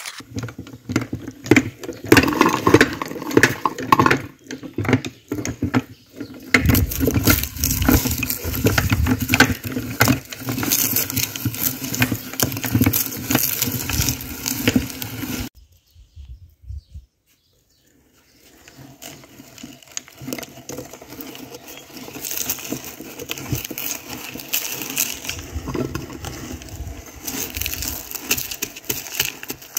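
Plastic ice cream wrappers crinkling, then wafer cones and chocolate crunching and cracking as they are forced through a hand-cranked metal meat grinder. A brief silent break comes about halfway through.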